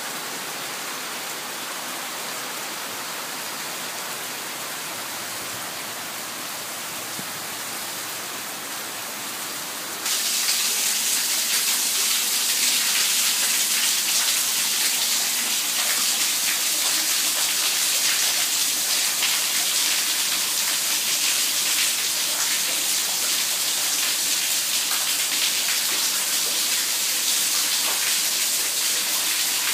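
Heavy rain falling steadily on lawn, paving and shrubs, a continuous hiss of drops. About ten seconds in it becomes louder and brighter.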